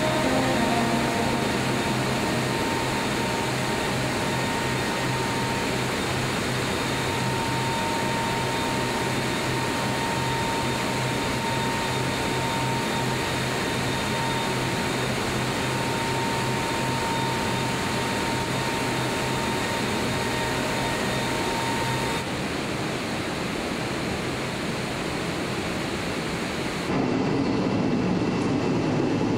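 Steady machinery hum and rushing air of an automated car-body paint line, with a faint steady whine over it. The sound shifts abruptly about two-thirds of the way in and again near the end.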